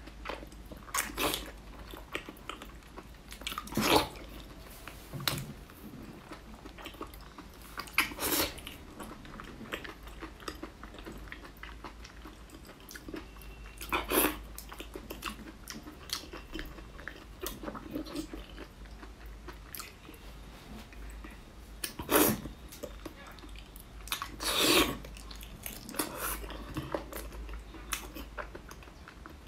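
Close-miked eating: wet biting, sucking and chewing on a thick pork sausage, with sharp, louder bites coming at irregular moments, several seconds apart.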